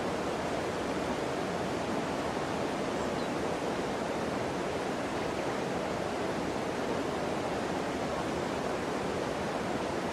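Shallow river water rushing steadily over stones, an even rush with no breaks.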